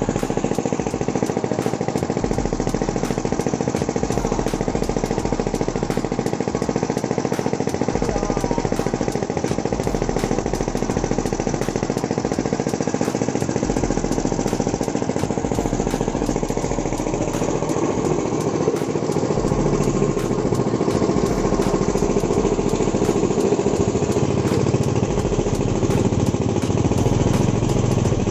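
Small engine running steadily, driving a belt-driven stainless-steel sugarcane peeling machine as cane stalks are fed through its blades. The running grows somewhat louder and deeper in the second half.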